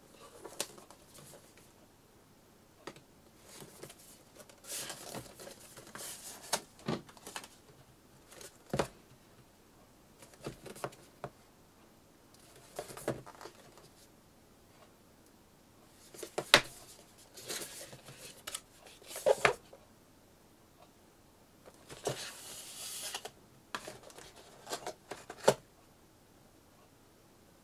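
Cardboard packaging handled on a wooden desk: a boxed sports watch slid out of its printed outer sleeve and its black inner box opened, with intermittent scraping and rustling of card and several sharp taps and clicks as boxes are set down and the lid lifted.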